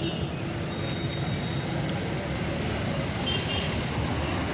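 Steady low rumble of motor traffic, with a few faint light clicks.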